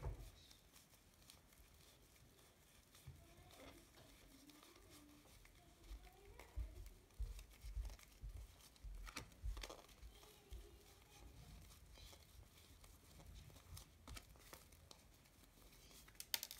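Faint handling of a deck of Lenormand cards held fanned in the hands: soft slides, rustles and light clicks as the cards are shifted and sorted, with a few dull knocks midway and a quick cluster of sharper card snaps near the end.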